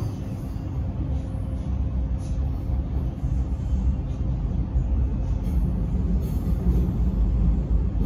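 Alstom X'Trapolis electric train running at speed, heard from inside the carriage: a steady low rumble of wheels on track with a faint steady hum, growing a little louder in the second half.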